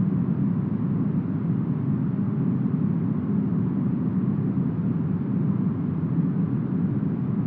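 Smoothed brown noise, sold as deep forest wind: a steady, deep, dull rushing sound with no gusts, breaks or changes, and no high hiss.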